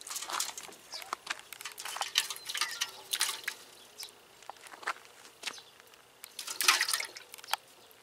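Water splashing and dripping in an aluminium pot holding a live crucian carp as a cat paws at it: short irregular splashes, the loudest about two-thirds of the way through.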